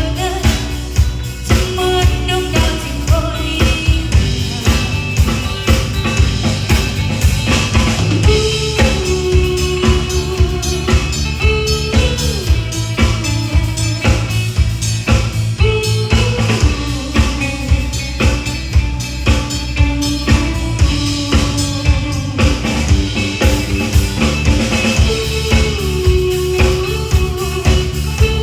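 Live band playing an instrumental passage between sung verses: a drum kit keeps a steady beat over bass and a held melody line.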